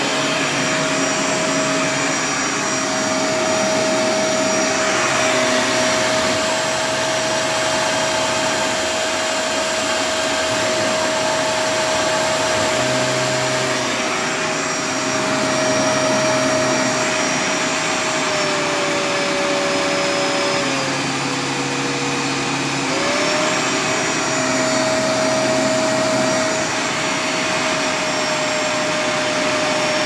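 Kenmore Progressive Intelliclean bagless upright vacuum cleaner, made by Panasonic, running with a steady motor whine. About two-thirds of the way through, its pitch sags for a few seconds and then comes back up.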